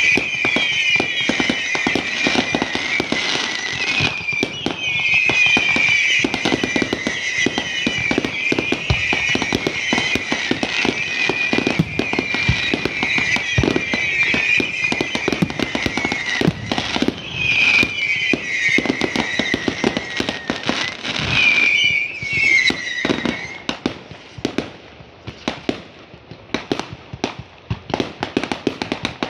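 Fireworks crackling and banging in rapid, dense succession, with a wavering high-pitched whistle over them. About three-quarters of the way through the whistle stops and the bangs grow sparser and quieter.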